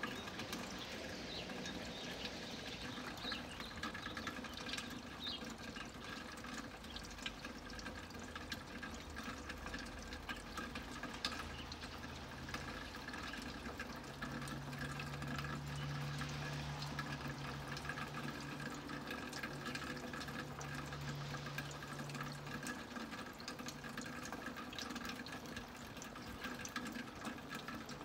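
Distant Airbus A320 jetliner passing high overhead, its IAE V2500 turbofans heard as a low drone over a steady hiss. The drone swells in the middle and dies away some six seconds before the end.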